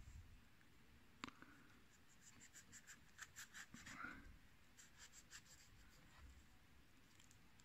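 Knife blade cutting through a Tephrocactus geometricus cactus segment: faint, scratchy crunching in quick ticks, several a second, from about two to five seconds in, after a single click about a second in.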